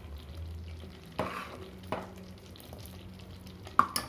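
Ginger-and-jaggery syrup cooking in a pan while being stirred, still short of the hard, dark syrup stage it is being cooked to. The stirring utensil knocks against the pan three times, the sharpest knock near the end.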